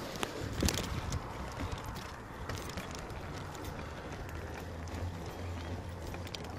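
Touring bicycle rolling along a concrete bridge roadway: steady tyre and wind noise with scattered light clicks, and a low hum setting in about a second in.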